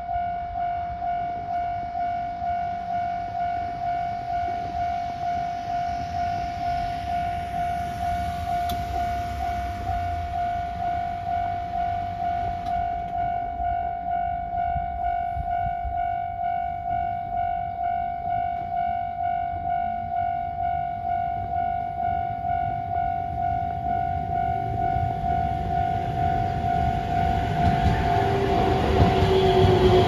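Japanese railway level-crossing warning bell ringing, an even electronic ding repeated about one and a half times a second, which signals a train approaching. Near the end a train arrives and its running noise rises over the bell, with a low falling tone.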